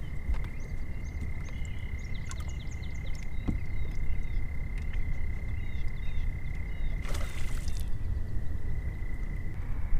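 A frog's long, steady, high trill held without a break, with short bird chirps above it and a low rumble of wind and water. A brief rush of noise comes about seven seconds in.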